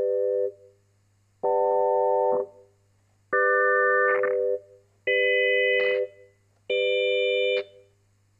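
Farfisa Pergamon analog organ playing the same held chord about five times, each about a second long with short gaps. More octave drawbars are pulled out between chords, so each chord sounds brighter than the one before.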